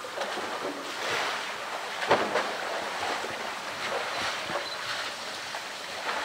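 Water splashing and sloshing as a polar bear wades and paws at a floating roly-poly toy in the shallows of her pool, with one sharp knock about two seconds in.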